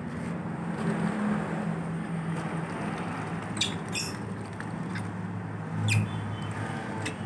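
A baby monkey gives a few short, high-pitched squeaks over a steady low hum.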